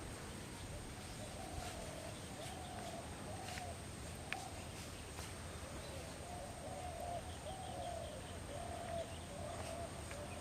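A bird calling a long series of short, pitched notes, repeated a little more than once a second, over a faint steady hiss.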